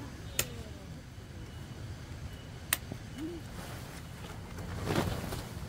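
Two sharp clicks, then a rustle of nylon tent fabric that swells near the end and fades, as an annex is hooked onto a rooftop tent.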